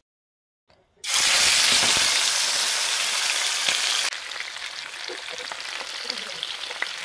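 Marinated chicken leg pieces sizzling in hot oil in a frying pan. The sizzle starts abruptly about a second in, then drops to a quieter level about four seconds in.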